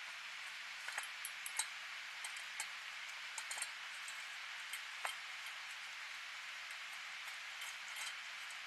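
Two cats eating from one stainless-steel bowl: scattered small clicks and clinks of eating against the metal bowl over a steady hiss.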